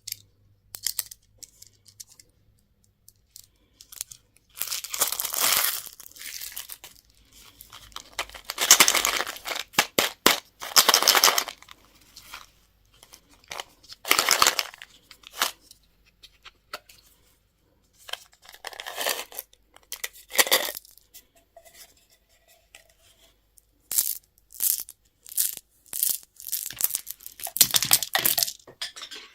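Candy wrappers being torn open and crinkled in repeated bursts, with sharp clicks and taps in between.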